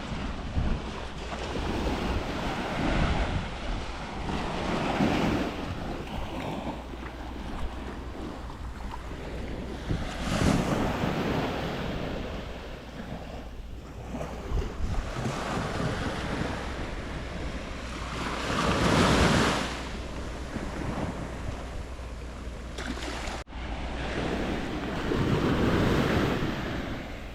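Surf breaking on a sandy beach, each wave swelling louder and falling back about every seven to eight seconds, with wind rumbling on the microphone.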